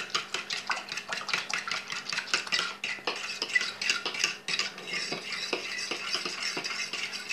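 A utensil whisked briskly through egg and milk in a plastic mixing bowl, tapping and scraping against the bowl several times a second as the liquid is mixed.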